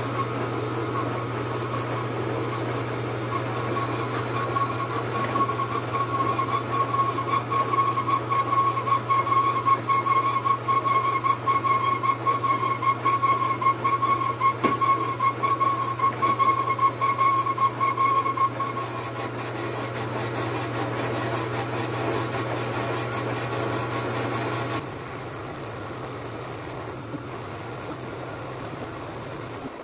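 Metal lathe turning a diesel cylinder head as the cutting tool faces its surface: a steady motor hum with a whining tone from the tool's cut from a few seconds in until about two-thirds through. The hum drops near the end.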